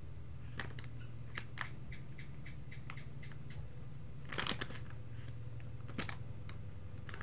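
Soft plastic wet-wipes pack crinkling and rustling as a small child handles it and pulls wipes out through its opening: scattered light clicks, with louder rustles about four and a half and six seconds in.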